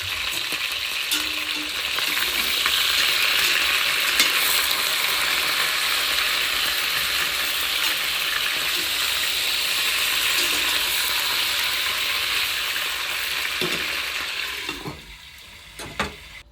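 Food sizzling in a hot frying pan: a steady sizzle with scattered crackles that starts abruptly and dies away near the end, followed by a couple of knocks.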